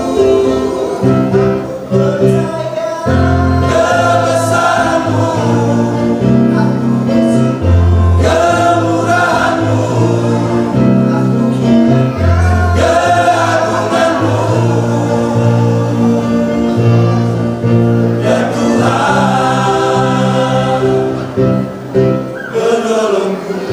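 Church choir singing, several voices together in harmony with long held low notes.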